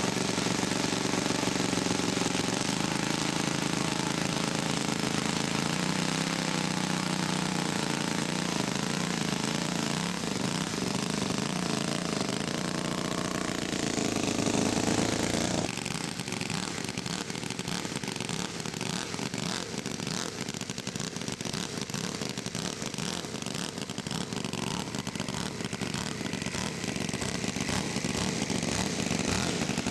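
Small model-aircraft engines of several radio-controlled scale Fokker D.VII biplanes running steadily, with the pitch shifting slightly now and then. The sound drops suddenly about halfway through and carries on more quietly.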